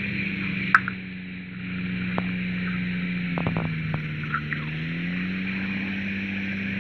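Weight-shift microlight trike engine running steadily at low power while the trike taxis on grass. Its pitch sags a little a few seconds in, then comes back up. A few light clicks sound over it.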